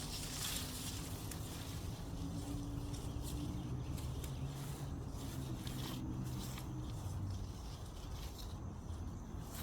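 Leaves and branches of an Asian pear tree rustling, with scattered snaps and clicks as pears are picked, over a steady low hum.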